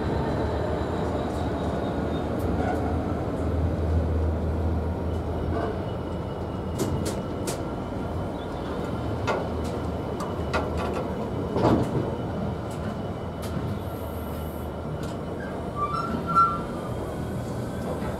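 Train running along the track: a steady rumble with scattered sharp clicks from the wheels and a faint high wheel squeal. A short two-note beep sounds about sixteen seconds in.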